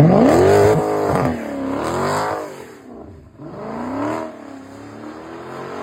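Car engine revving hard. Its pitch climbs steeply at the start, then surges and eases about every two seconds.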